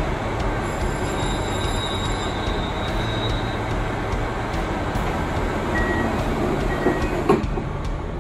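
Steady rumble of a KiHa 261 series diesel railcar idling at the platform, heard through its open door. Near the end a sharp knock as the sliding passenger door starts to close before departure.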